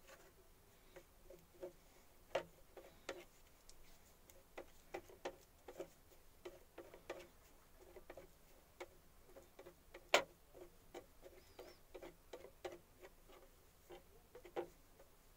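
Irregular light taps and clicks, two or three a second, with one sharper knock about ten seconds in.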